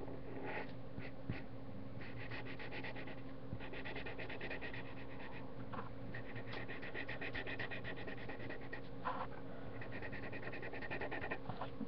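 Felt-tip marker scribbling on paper in quick back-and-forth strokes, coming in several spells of a second or two, over a steady low hum.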